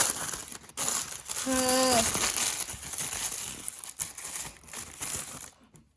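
Packaging crinkling and rustling as it is handled and pulled open, a steady crackly rustle that dies away near the end.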